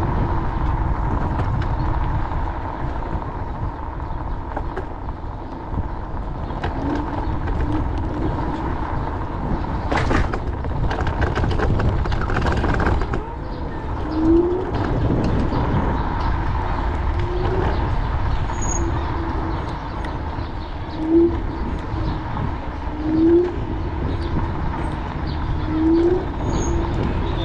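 Segway GT2 electric scooter under way: a steady low rushing noise with a steady motor whine. Half a dozen short rising tones come a few seconds apart.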